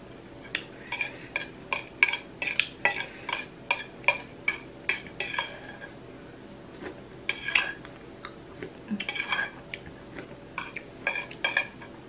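Cutlery clinking and scraping against a plate in quick taps. The taps come in a busy run for the first five seconds or so, then in shorter clusters with pauses between.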